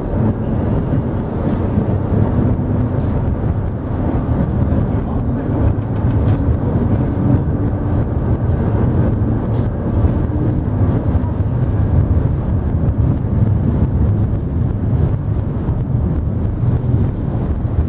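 A Mersey ferry's diesel engines running with a steady low rumble, mixed with wind buffeting the microphone and water churning past the hull.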